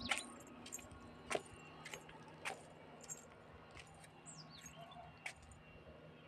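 Pieces of baked clay pot crunching and clinking: about seven sharp, separate cracks at irregular intervals.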